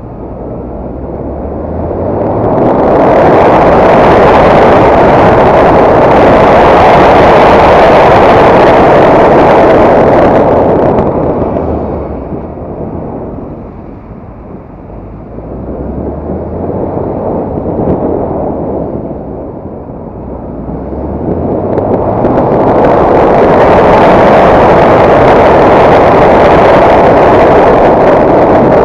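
Heavy wind noise on the microphone of a moving motorcycle, with its engine revving in rising steps underneath as it accelerates through the gears. The rush builds to a loud, saturated roar, eases for several seconds in the middle as the bike slows, then builds again as it speeds up.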